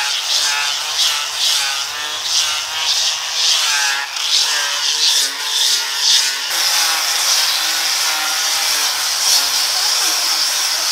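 Handheld electric sander running with its disc pressed against bare wood: a motor whine that wavers in pitch as the disc is pushed and moved over the board, over a steady sanding hiss. About two-thirds of the way through it turns to a steadier, even hiss as it works a wooden post.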